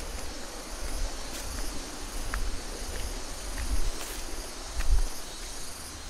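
Steady high-pitched chirring of insects in the forest, with low thumps of footsteps on the path, the loudest about five seconds in.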